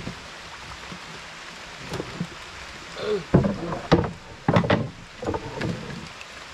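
A few sharp knocks and clatters on a small boat's hull about three to five seconds in, as a paddle is handled, over a steady hiss of light drizzle.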